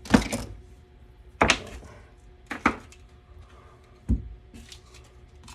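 Four separate sharp knocks and clunks a second or so apart, as hard objects are picked up and set down on a workbench.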